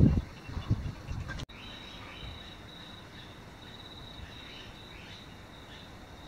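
Steady, high-pitched insect trilling with a slight pulse. For the first second and a half, low buffeting noise sits under it, then cuts off abruptly.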